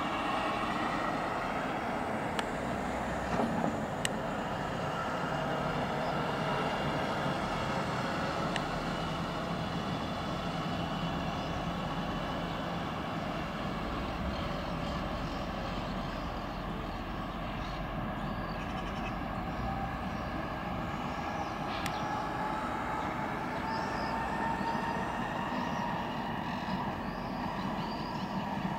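Jet airliner (a Boeing 777-200ER with Rolls-Royce Trent 800 engines) passing overhead on approach: a steady engine rumble with faint whining tones that slowly drift in pitch.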